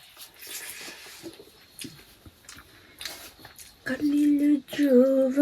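Faint scattered clicks of eating, then about four seconds in a woman's voice holds two long, steady tones without words, like humming.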